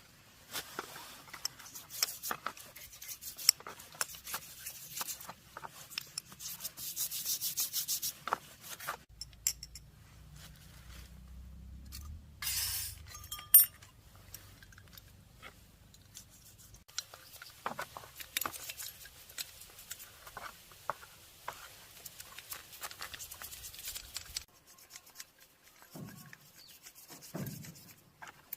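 Rubbing and scraping by hand on engine parts, in scratchy stretches with scattered clicks and clinks. A short low rumble comes near the middle, followed by one sharp clink.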